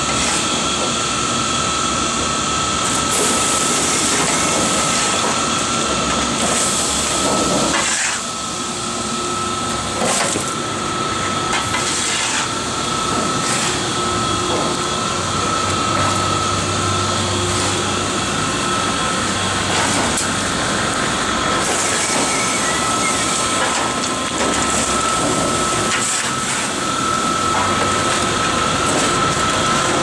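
Inclined belt conveyor and its drive running steadily while carrying chunks of waste wood, a constant high whine over an even mechanical rush.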